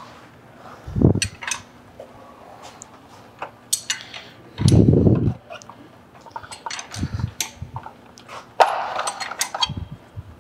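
Irregular metallic clinks and taps of tools and parts on a Porsche 993 air-cooled engine, with a few dull low thumps, the loudest about five seconds in, as the engine is turned over by hand toward top dead centre on cylinder four.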